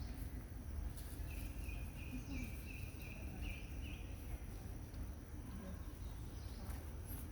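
A bird chirping a run of about eight short, even, high notes over a steady low outdoor rumble.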